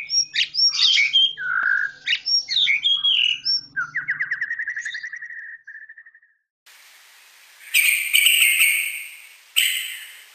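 Yellow-vented bulbul singing a fast run of bubbly, varied chirping phrases, ending about five seconds in with a quick trill of repeated notes that fades away. After a short gap, two harsh hissing bursts sound over a steady background hiss.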